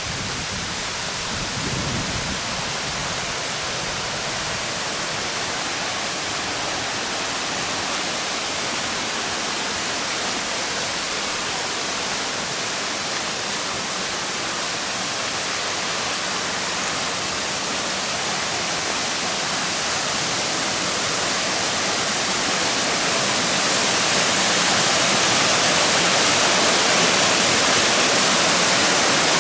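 Waterfall rushing: a steady, dense roar of falling water that grows louder over the last few seconds.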